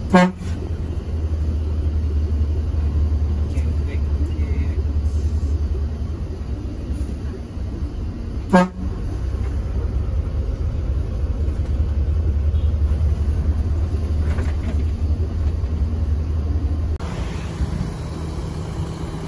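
Diesel bus engine running with a steady low rumble, and a horn giving a short toot twice: once at the start and again about eight and a half seconds later. About seventeen seconds in, the engine note drops and settles.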